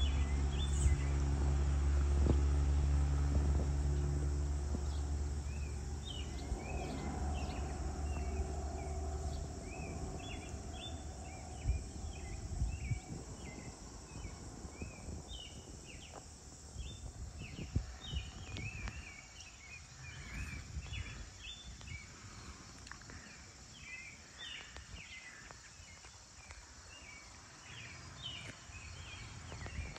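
Farm-field evening ambience: a low, steady droning hum fades away over the first ten seconds, and short high chirps from insects and birds repeat irregularly over a faint steady hiss.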